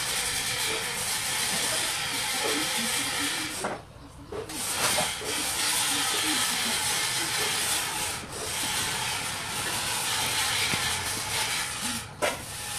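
A steady hiss, broken by short sudden drops about four seconds in, about eight seconds in and near the end.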